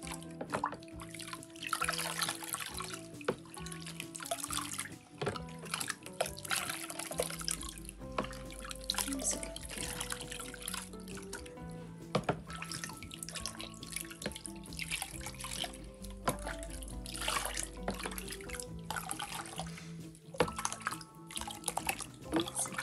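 Water poured from a plastic jug over a labradoodle puppy, running off its coat and splashing into a shallow plastic basin in several pours, with the jug dipped back into the bath water between them. Background music plays underneath.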